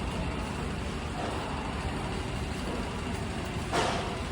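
Steady motor-vehicle and engine noise, with a short burst of noise near the end.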